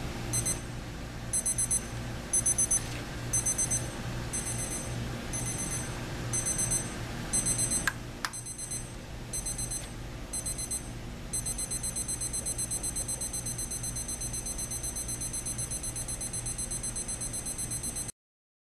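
Equity 30220 weather-station alarm clock sounding its alarm: high-pitched electronic beeps in short bursts with pauses. About eleven seconds in, the beeping turns into one rapid unbroken run, which cuts off abruptly near the end. A sharp click comes about eight seconds in.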